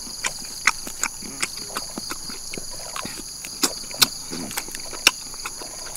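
Close-up eating sounds as grilled duck is torn from the bone by hand and chewed: irregular wet clicks and smacks of the mouth, a few a second. Under them runs a steady high-pitched drone.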